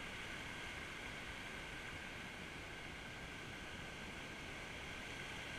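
Steady, even hiss at a low level, with no separate knocks, splashes or voices.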